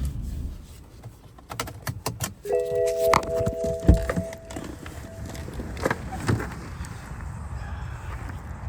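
Keys jangling and clicking, with a short chime of a few steady tones held for about two seconds, starting about two and a half seconds in.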